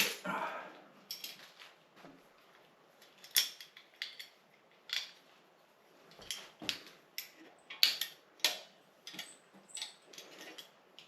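Irregular metallic clicks and clinks of hand tools and bicycle parts being handled while an old bicycle is dismantled, with the loudest clink at the very start.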